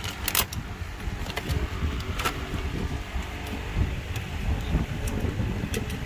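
A few sharp clicks and light metallic clinks of parts being handled, the loudest about a third of a second in and another about two seconds in, over an uneven low rumble.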